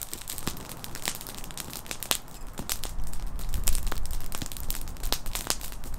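Campfire crackling, with irregular sharp snaps and pops from the burning wood.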